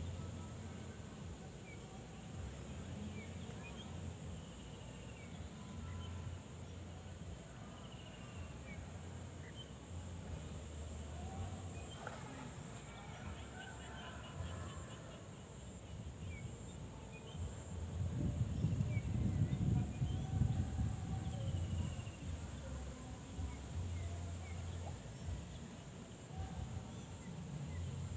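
Rural outdoor ambience: insects droning steadily in one high, unbroken note, with scattered bird chirps. A low wind rumble on the microphone runs underneath and swells about two-thirds of the way through.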